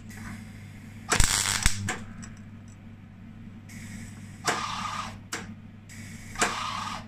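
MIG welder arc crackling in several short bursts as small spot welds are laid on thin steel plate, the loudest about a second in.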